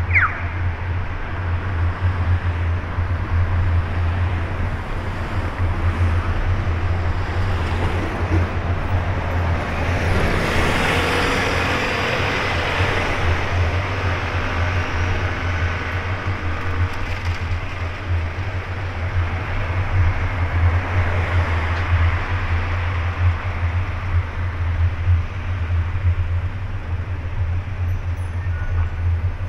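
City street traffic: cars and a bus running past on the road, an even wash of engine and tyre noise over a steady low rumble. About ten seconds in, a vehicle passes closer, swelling for a few seconds and then fading back.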